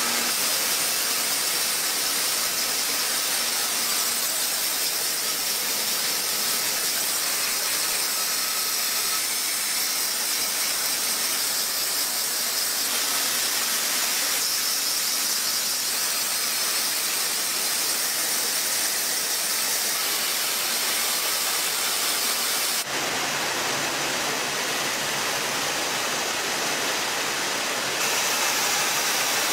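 Bottling-line machinery running: a steady hissing machine noise with no distinct beats, its tone shifting abruptly about three quarters of the way through and again near the end.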